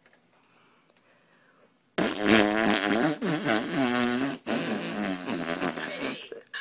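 A loud, drawn-out fart noise starting about two seconds in. It runs for about four seconds in three stretches, its pitch wobbling and sliding down and up.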